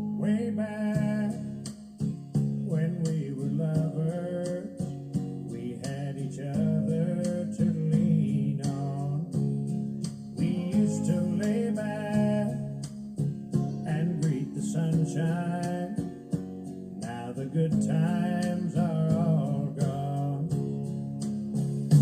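Background music: strummed acoustic guitar with a singing voice in phrases.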